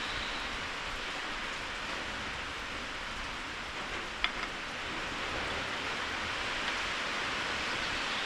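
Steady rain falling, with one sharp click about four seconds in.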